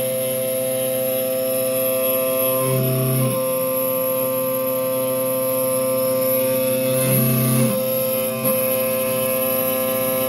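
Ghost Gunner 3S desktop CNC mill running while milling a stainless steel slide: a steady whine of several held tones from its spindle and axis motors, shifting in pitch briefly about three and seven seconds in.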